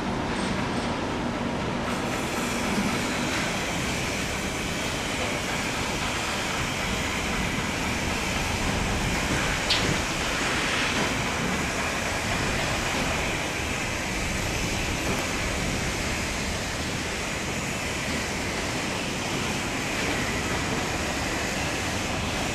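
Freight train of oil tank wagons rolling very slowly along the rails: a steady noise of wheels on track, with a faint high wheel squeal and one sharp click about ten seconds in.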